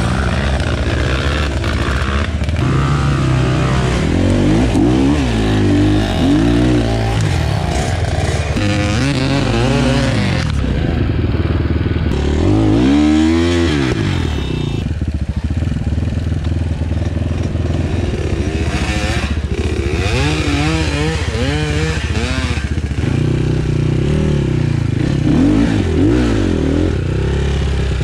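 Avantis 250 Pro enduro motorcycle engine being ridden hard through mud, its revs rising and falling again and again, with one sharp high rev near the middle and a short lower stretch after it.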